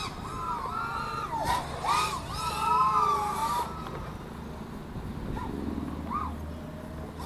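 Distant FPV quadcopter's motors whining, the pitch swooping up and down again and again as the throttle changes during acrobatic flying. The whine fades about four seconds in, leaving a low steady rumble.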